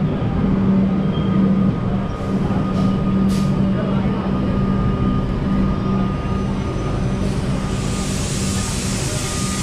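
Suburban electric train at an underground station platform, a steady low hum. A few short hisses come about two to three and a half seconds in, and a hiss swells from about eight seconds on.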